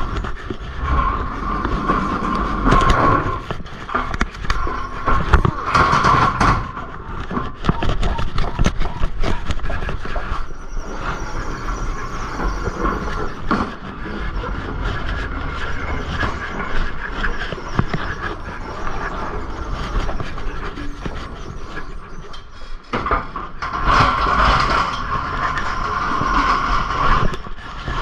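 Freight being unloaded from a tractor-trailer by hand: repeated knocks and clatter, with a high squeal, like wheels dragged across the trailer floor, coming in stretches about a second in, around six seconds in, and near the end.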